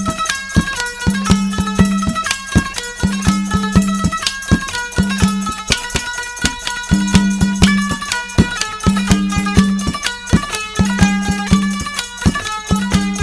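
Instrumental break in a nirgun bhajan: a melody played in short held notes over a fast, steady drum beat.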